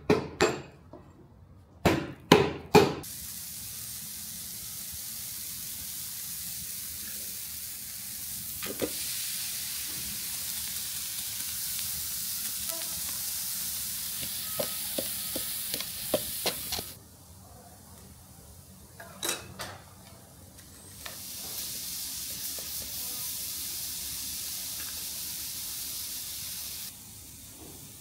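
Three hammer blows on steel, then a steady high hiss that cuts in and out abruptly twice, with a couple of knocks in the gap.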